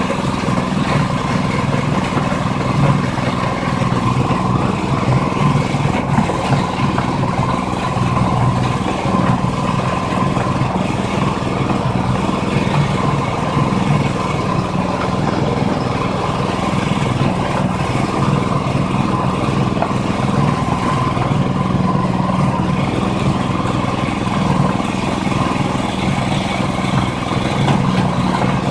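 Livestock feed blender machine running steadily at a constant speed, with an even mechanical hum.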